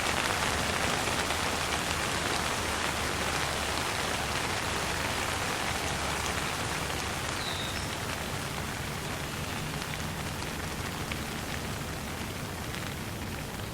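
Steady light rain falling: an even hiss of drops that eases slightly toward the end. A single short high chirp comes about halfway through.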